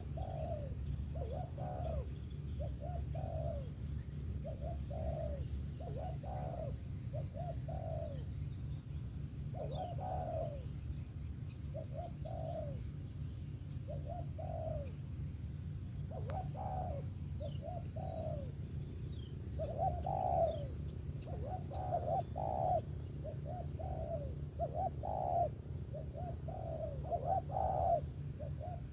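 Spotted dove cooing: a run of short, low coo notes repeating about once a second, with a steady low hum underneath and a faint high-pitched tone on and off.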